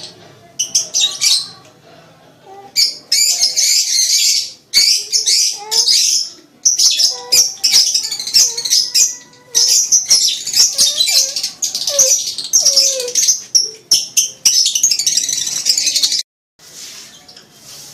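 Lovebird in breeding condition singing its rapid, high-pitched chattering song in long bursts. There is a short pause about two seconds in, and the song cuts off abruptly near the end.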